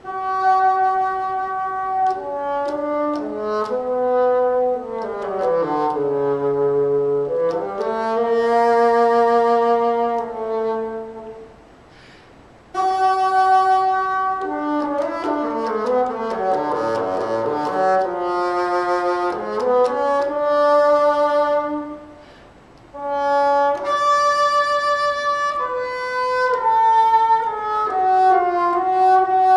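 Bassoon playing an unaccompanied solo line: phrases of quick runs that sweep down into the instrument's low register and climb back up, broken by two short pauses for breath, about eleven and twenty-two seconds in.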